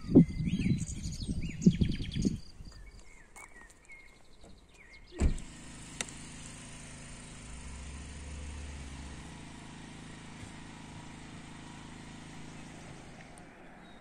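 Common nightingales singing, with a rapid run of repeated high notes and chirps over a loud, irregular low rumble during the first few seconds. A thump about five seconds in is followed by a steady low hum.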